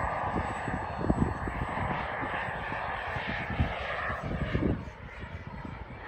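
Small model jet turbine engine in a radio-controlled HSD F-16 running in flight overhead, a steady rushing jet sound that falls off about five seconds in as the plane moves away. Irregular low rumbles sit under it.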